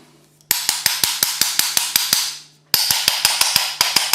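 Rapid metallic tapping on the small electric motor of a Renault Scenic electric parking brake, about seven or eight sharp taps a second in two runs with a short pause between. The tapping is to knock brush dust out of the failing motor, whose brushes are suspected to be worn.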